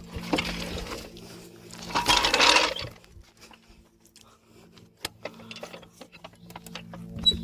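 An impact wrench runs in a short burst about two seconds in, over a steady low hum, followed by a few sharp metallic clicks from handling the lug nuts and tools.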